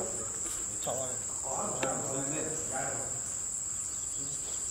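A steady, high-pitched insect chorus, holding one unbroken tone with a faint pulsing above it.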